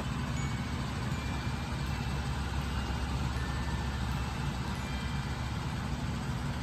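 A steady low hum that runs unchanged throughout, with a few faint high notes here and there.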